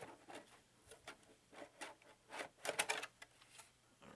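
Handling noise from a plastic RC truck body shell: an irregular run of light clicks and rustles, loudest in a cluster about two and a half to three seconds in.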